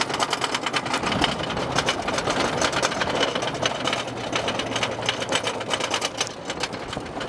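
Wooden roller coaster train being pulled up the chain lift hill: a rapid, steady mechanical clatter of the lift chain and the clicking anti-rollback dogs.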